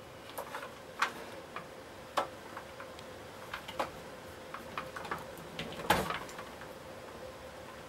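Scattered light clicks and taps of hands and small tools working at the wiring terminal block of a Hoover Junior vacuum cleaner, with one louder knock about six seconds in.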